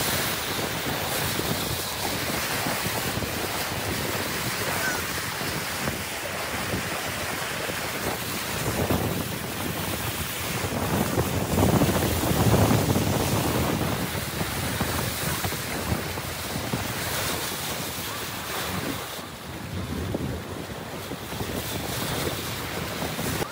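A car driving through deep floodwater, water rushing and spraying along its side, with wind buffeting the microphone. The rush swells for a couple of seconds about halfway through.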